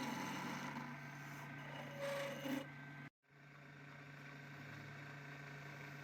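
An electric motor hums steadily under a rubbing, rasping noise, like a tool or abrasive working on a turning piece. The sound cuts out abruptly about three seconds in, then the hum returns with less rasping.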